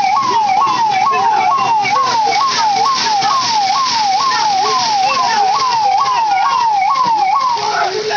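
Police siren wailing in a fast repeating cycle, jumping up and sliding down about twice a second, over the steady hiss of a water cannon jet. The siren stops near the end.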